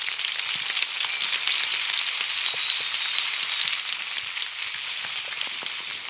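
Sound effects from an animated film's effects-only track: a dense, steady crackling patter of many tiny clicks, easing off near the end.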